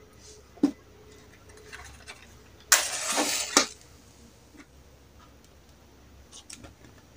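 Hands handling small parts on a workbench: a single click, then about a second in the middle a loud scraping rustle that stops with a sharp snap.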